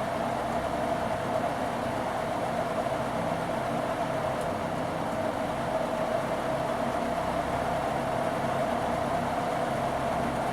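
Moss Caribbean Breeze 36-inch wood-blade ceiling fan running steadily: an even rush of moving air over a low motor hum, with no change in speed.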